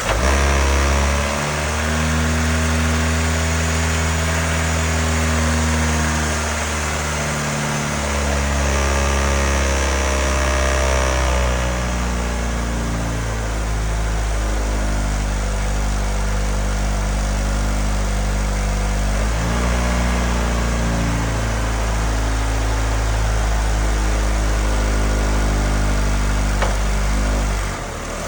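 2012 Honda Civic's four-cylinder engine catching and running at idle, its idle speed shifting a couple of times and settling lower near the end. It is the first run after the intake hose replacement and battery reconnection, and it sounds good.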